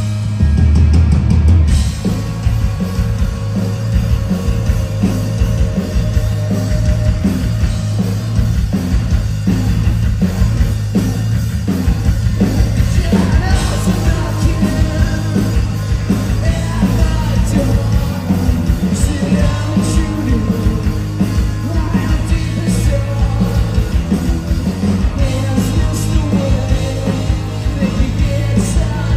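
A rock band playing loud live: electric guitars, bass and drums, with singing.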